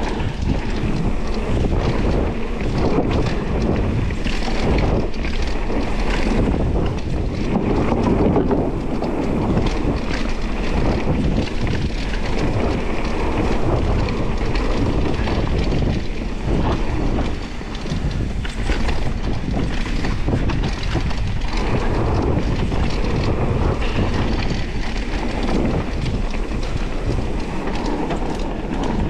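Wind rushing over the camera microphone as a mountain bike rides down a dirt trail, with the bike rattling and knocking over bumps throughout.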